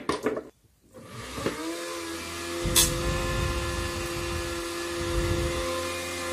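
The small replacement DC motor in a rechargeable handheld desk fan spins up about a second in, rising quickly in pitch, then runs with a steady whine. A low rumble joins in at about two and a half seconds, with one sharp click just after.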